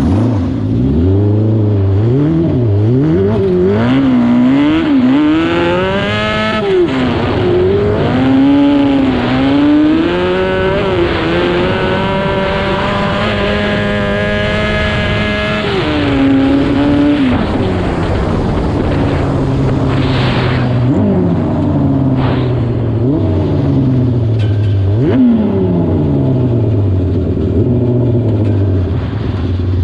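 The Yamaha R6 600cc inline-four engine of a homemade ride-on lawn mower revs up and down again and again. It is held at high revs for a few seconds around the middle, then drops back, and later comes several quick throttle blips that each rise sharply and fall away.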